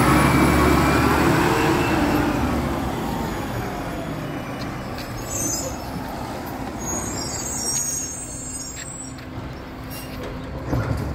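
Garbage truck engine pulling away and fading over several seconds. Short air hisses come about five seconds in and again a couple of seconds later, and there is a brief knock near the end.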